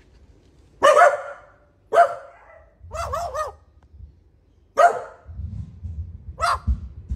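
Australian magpie mimicking a dog's bark: sharp single barks, a quick run of three about three seconds in, then two more single barks, with a low rumble beneath the last ones.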